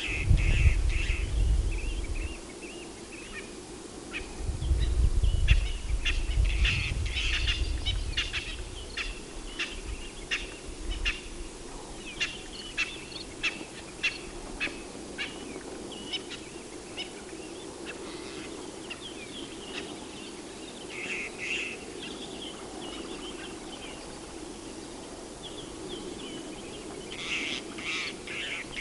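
Birds calling, with a long run of short sharp chirps, several a second, through the middle and a burst of calls near the end. Low rumbling wind gusts hit the microphone at the start and again from about five to eight seconds in.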